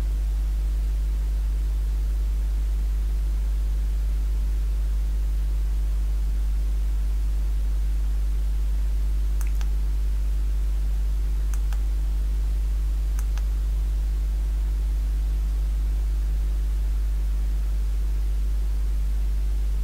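Steady low electrical mains hum with a buzzy edge, unchanging throughout, with a few faint clicks around the middle.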